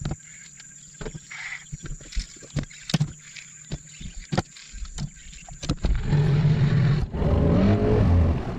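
Scattered sharp clicks and knocks, then about six seconds in a small Tohatsu tiller outboard motor running loud, its pitch rising as it is throttled up near the end.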